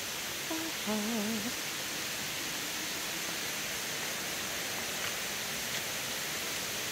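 Waterfall rushing steadily below the bridge: an even hiss of falling water, with a brief faint voice about a second in.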